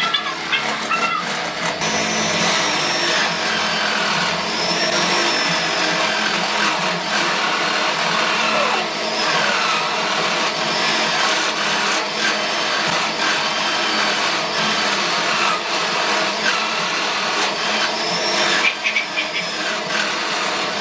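Angle-grinder motor driving a homemade wood lathe, running steadily with a whine that wavers in pitch as the load changes.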